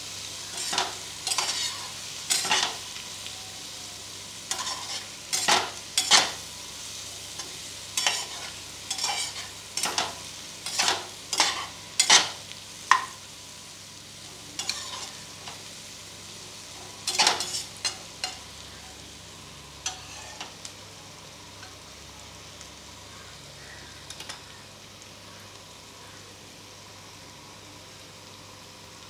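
A flat metal spatula scrapes and stirs diced potatoes and onions frying with ground spices in oil in a steel pot, over a steady sizzle. The scraping strokes come about once or twice a second for the first eighteen seconds, then only a few, leaving mostly the sizzle.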